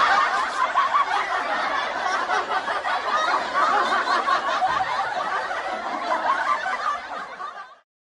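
Laughter sound effect: a dense, continuous stretch of chuckling laughter that fades out near the end.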